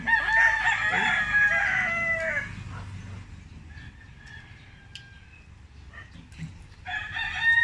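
A rooster crowing twice: one long crow lasting about two and a half seconds at the start, and a second crow beginning near the end.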